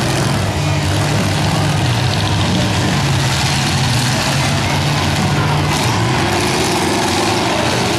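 Several demolition derby cars' engines running and revving together, a dense, steady mix of engine noise.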